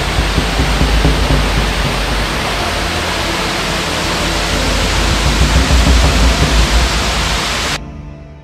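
Waterfall splashing into a plunge pool: a loud, steady rush with a deep rumble underneath, fading out near the end.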